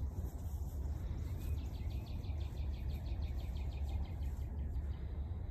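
Outdoor ambience: a steady low wind rumble on the microphone, with a fast, high-pitched chirping trill in the background lasting about three seconds in the middle.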